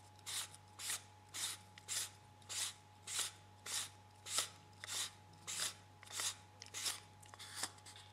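The threaded back section of an MHS lightsaber hilt being unscrewed by hand: the metal threads give a short dry scraping rasp with each twist, about one and a half strokes a second.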